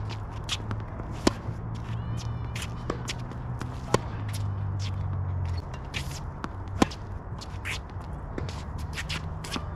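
Tennis rally: racket strikes on the ball, the three loudest spaced about two and a half to three seconds apart, with fainter hits from the far end in between, and shoes scuffing and squeaking on the court.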